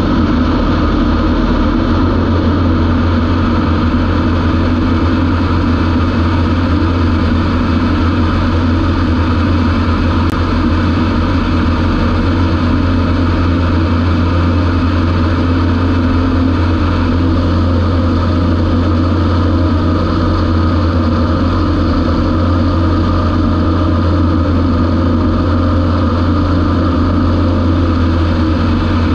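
Light aircraft's engine and propeller droning steadily, heard from inside the cabin: a strong low hum under an even rushing noise, unchanging throughout.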